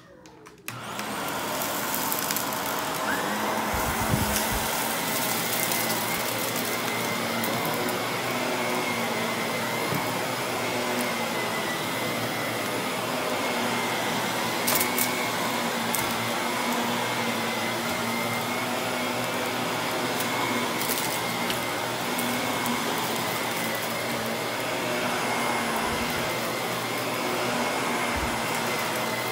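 Vacuum cleaner switching on about a second in and running steadily, with a steady high whine and a few light clicks.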